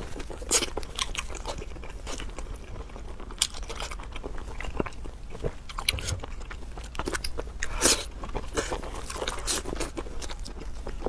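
Close-miked eating: a person biting into and chewing chili-coated seafood, with irregular crunches and crackles.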